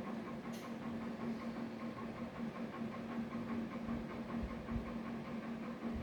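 Banging from a flat upstairs, heard through the building as dull, low thumps, a few in quick succession about four seconds in, over a steady electrical hum.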